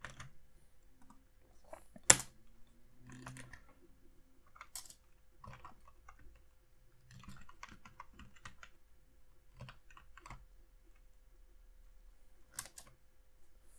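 Computer keyboard typing: irregular, scattered keystrokes with pauses, and one sharper, louder click about two seconds in.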